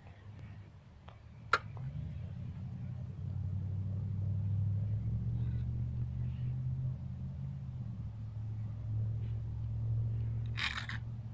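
Low, steady hum or rumble from an unseen machine, with a single sharp click about a second and a half in and a brief scraping noise near the end.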